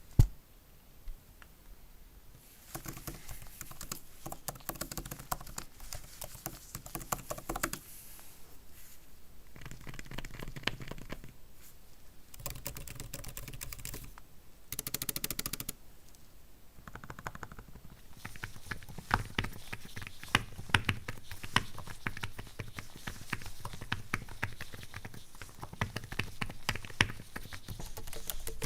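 Typing on the keys of an Apple Magic Keyboard for iPad Pro: runs of rapid key clicks with short pauses between them, after one sharp click at the start.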